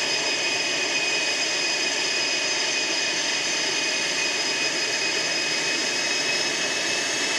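Jet engine of the X-59, a General Electric F414 turbofan, running steadily with the aircraft standing still: an even rushing hiss with a high whine held at one pitch.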